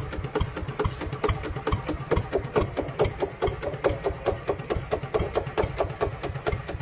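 Rhythmic engine-like chugging, several beats a second, with music playing behind it.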